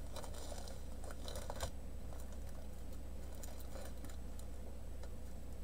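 Faint crinkling and a few light clicks of a clear plastic packaging bag being handled, most of them in the first two seconds, over a steady low hum.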